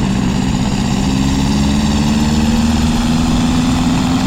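A motor running steadily, its hum creeping slowly up in pitch.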